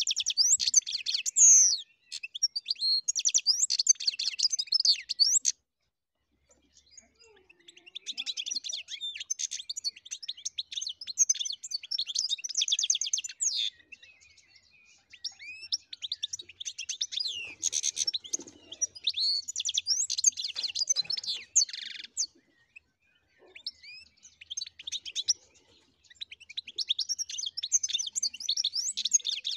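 European goldfinch singing: fast, tinkling twittering phrases, broken by short pauses of a second or two.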